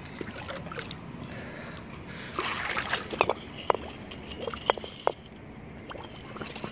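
Shallow pond water sloshing as a hand works a glass jar into the muddy bottom to scoop up dirt. There is a splashy stretch about two and a half seconds in, then a few short bubbling plops over the next two seconds.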